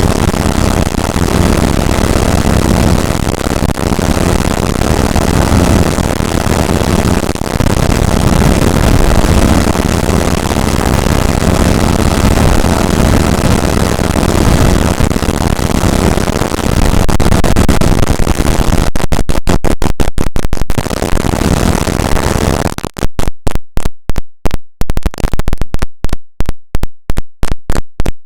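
Harsh, loud noise from a homemade experimental synthesizer, a dense rumbling hiss with no clear pitch. About two-thirds of the way in it begins chopping rapidly on and off, and near the end it stutters in fast gated pulses with short silences between them.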